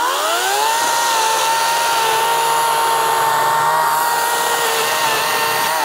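EGO Power+ CS1804 battery-powered chainsaw spinning up with a rising whine, then cutting through a log with a steady high motor whine over the rasp of the chain in the wood, its pitch starting to fall near the end as the trigger is released.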